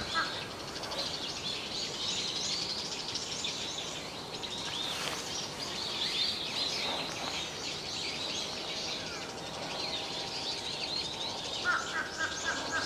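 Wild birds calling together, many short high chirps overlapping without pause. Near the end a lower call joins, repeated quickly at about four a second.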